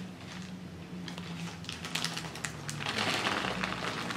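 Shelled raw peanuts clattering into a plastic bag, with the bag crinkling. The rattle grows denser and louder about three seconds in, as the cup is tipped out.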